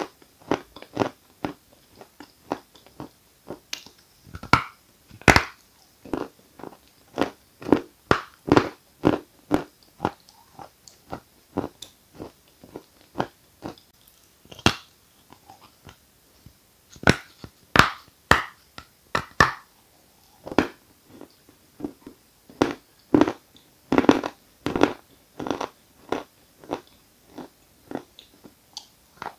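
Edible chalk of the "Giant" variety being bitten and chewed: a steady run of crisp crunches, about two a second, with a few louder bites among them.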